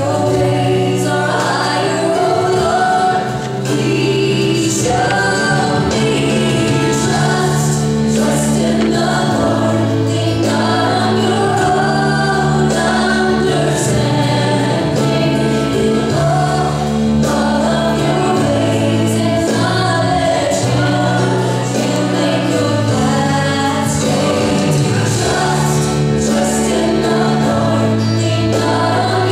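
Christian gospel-style song: a choir singing over long held bass notes, with a light beat ticking in the background.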